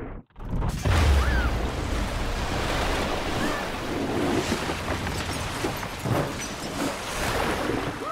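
A torrent of floodwater rushing and crashing. It breaks in after a brief silence at the very start, with a deep rumble about a second in.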